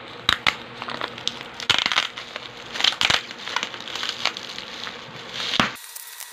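Plastic bubble wrap crinkling and crackling as hands squeeze and unwrap it, with sharp, irregular cracks.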